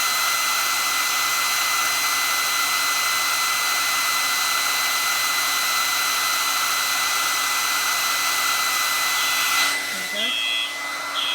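Hand-held hair dryer blowing steadily with a high whine, heating a fire alarm heat detector. It cuts off about ten seconds in, and two short high beeps follow as the fire alarm begins to sound with the detector tripped.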